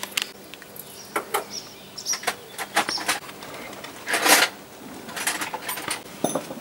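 Scattered short clicks and knocks, with a louder rustling burst about four seconds in.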